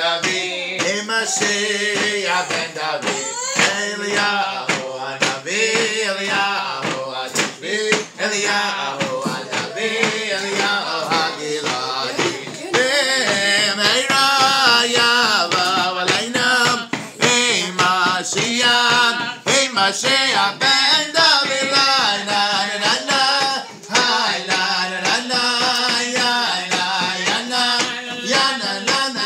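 Men singing a song together, with a beat struck in time with it.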